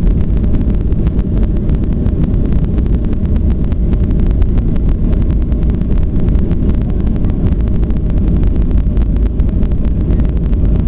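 Jet airliner's engines and airflow at takeoff power, heard inside the passenger cabin as a loud, steady low rumble.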